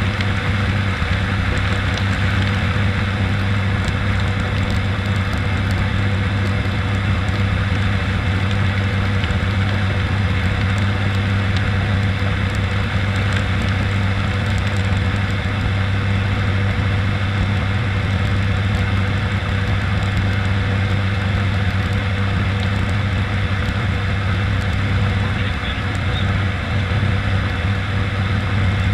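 Steady cockpit drone of an ATR 72-600's twin Pratt & Whitney PW127M turboprops and six-bladed propellers in flight: a strong, even low hum under a constant hiss of airflow.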